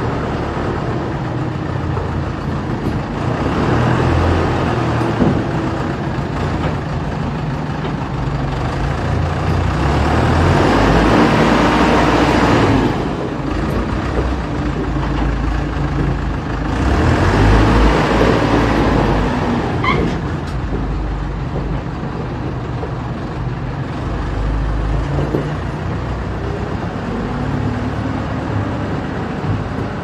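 Underground LHD loader's engine running close by, growing louder and easing off several times as the machine drives and works.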